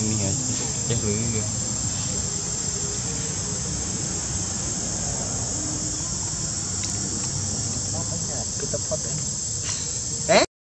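A steady, high-pitched chorus of insects droning without pause. Near the end comes a brief, loud rising squeal, and the sound then cuts out.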